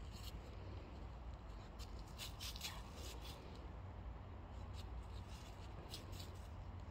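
German shepherd digging in soil with its front paws: irregular short scratching rasps, several in quick succession about two seconds in and more near the end.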